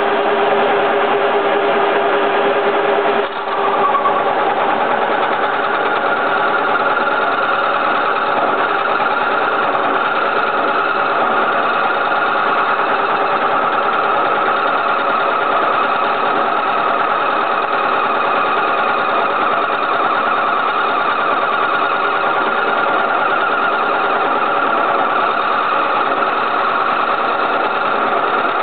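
Milling machine spindle and gearbox running steadily, turning a flat boring head with a homemade cutter that takes a 1 mm radial cut to enlarge a hole in a steel plate. It comes up loud at once, dips briefly about three seconds in, then holds an even, droning pitch.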